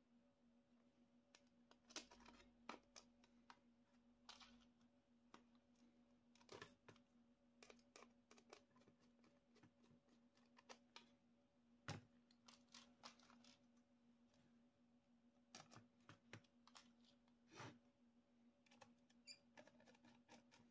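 Faint, scattered clicks and taps of acrylic panels and small screws being handled and turned with a small screwdriver, over a steady faint hum.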